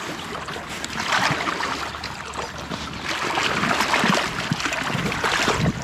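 Water splashing and churning close to the microphone as a hooked rainbow trout is played in the shallows, over the running river.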